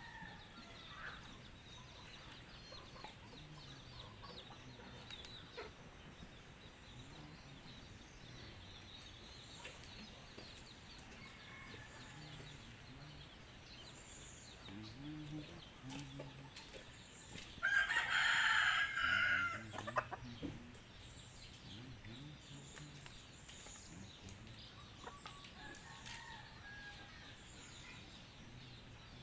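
A rooster crows once, about two seconds long and loud, some eighteen seconds in. Faint scattered bird calls are heard before and after it.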